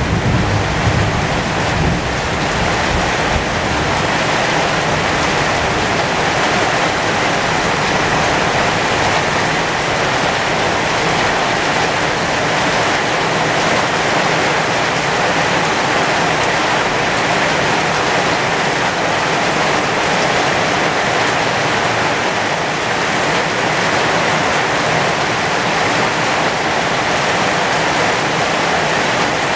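Heavy, steady rain pouring onto the leaves of a pomegranate tree. A low rumble of thunder dies away over the first few seconds.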